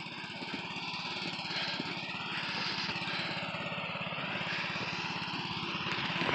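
Small engine of a modified riding lawn mower idling steadily, heard from a little way off and growing slightly louder toward the end.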